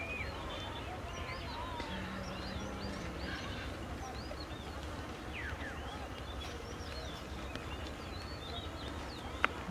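Small birds chirping here and there over a steady low rumble, with a brief low hum about two seconds in and a sharp click near the end.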